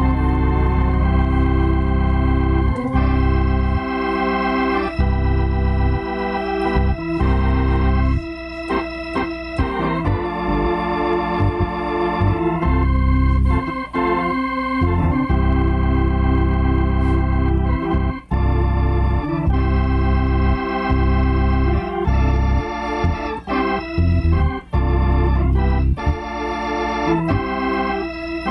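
Two-manual console organ played with both hands: sustained chords over a deep bass line, the chords and bass notes changing every second or two.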